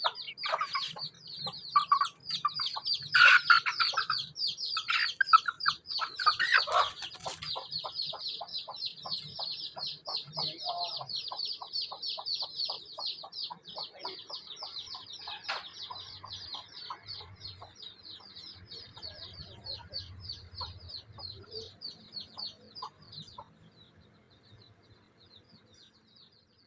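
Baby chicks peeping, a rapid unbroken string of short high calls that fades away near the end, with adult chickens clucking loudly over it in the first several seconds.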